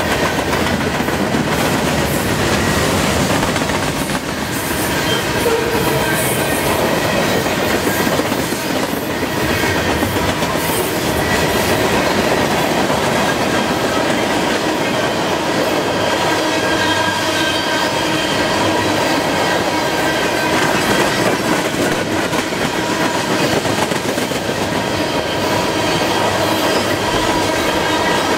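Long freight train of boxcars and tank cars rolling past at about 39 mph: a steady rumble and clatter of steel wheels over the rails, with thin high wheel squeal ringing over it.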